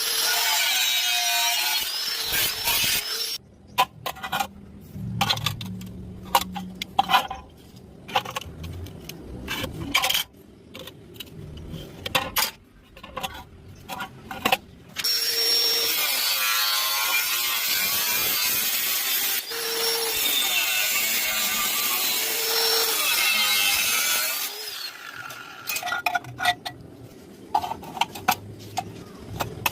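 Wood being sawn, in two long steady stretches, with stretches of sharp irregular knocks and clicks of tool work between them.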